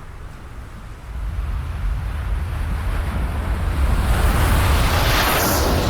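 A deep rumble under a rushing hiss that swells steadily from about a second in and peaks near the end.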